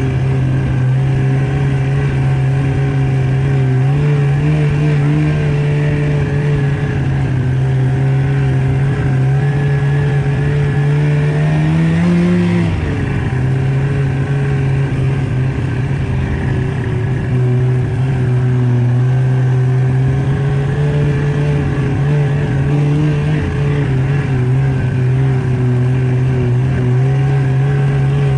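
Snowmobile engine running steadily under way, briefly revving higher about twelve seconds in before settling back.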